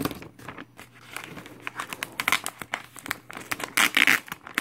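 Paper and plastic packaging of a vinyl record crinkling and rustling as it is handled, in irregular crackles with a louder burst about four seconds in.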